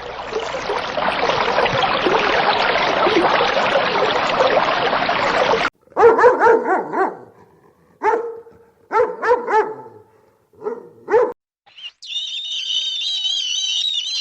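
A dog barking, several separate barks in a row in the middle of the stretch. Before the barks there is a dense rough noise lasting about five seconds, and after them a high warbling sound begins.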